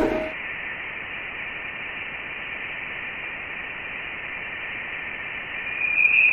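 Sonified space data played as a steady, radio-like static hiss with faint high steady tones. Near the end, a louder high whistling tone comes in over the hiss.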